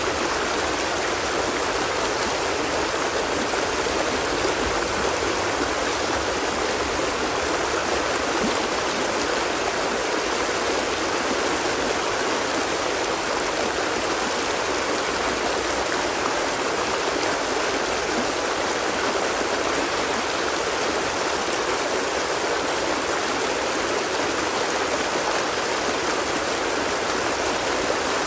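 Water flowing steadily, a constant, even rush of sound with no breaks or changes.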